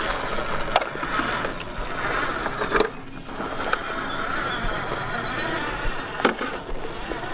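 1/10-scale RC4WD Ford Raptor truck crawling through brush and over gravel: plants rustling and crackling against the body and tyres, with a few sharp knocks from stones.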